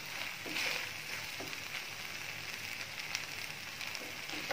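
Masala oats and chopped vegetables sizzling in a nonstick frying pan, with a wooden spatula stirring and scraping through them a few times.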